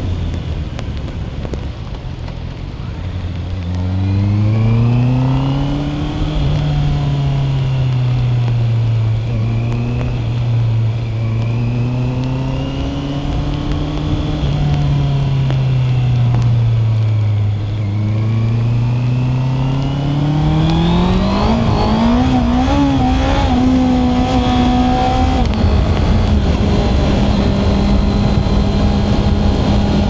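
Honda CB650R's inline-four engine on the move: it rises in pitch a few seconds in, holds steady, eases off and falls around the middle, then accelerates from about two-thirds of the way through, climbing in pitch and settling on a higher steady note. A steady rushing hiss of wind and wet road runs underneath.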